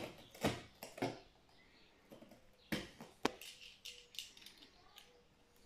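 Box cutter scraping and cutting into a cardboard box and its packing tape: intermittent scratching with a few sharp clicks and knocks.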